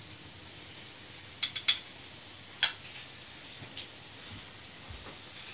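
Light clinks of a spoon and a small ceramic dish on a stone countertop: three quick clicks about a second and a half in, one more a second later, then a couple of fainter ticks.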